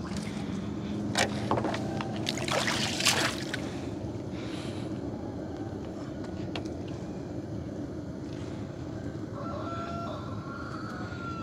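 Wet gill net being hauled by hand over the side of a wooden boat, with sharp splashes and rustles of netting in the first few seconds over a steady low hum.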